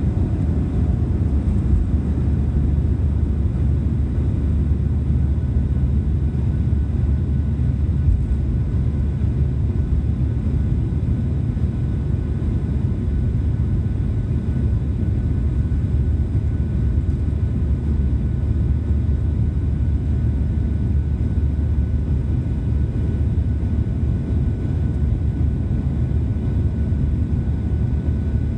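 Cabin noise of a Boeing 737-700 during the takeoff run and climb-out: the steady, deep rumble of the CFM56-7B turbofans at takeoff thrust mixed with rushing air, with faint steady whining tones above it.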